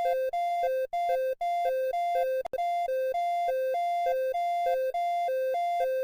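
Synthesized two-tone emergency alert alarm, a higher and a lower tone alternating about twice a second in a steady hi-lo warble, broken by a few brief dropouts and a click partway through.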